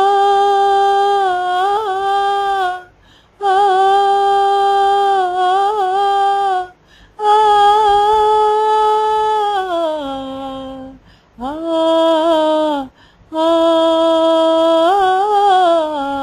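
A woman singing wordless held notes with no accompaniment, in five long phrases separated by short breaths. The notes carry small ornaments and slides, with one downward glide near the middle. This is in the style of Hindustani sargam singing.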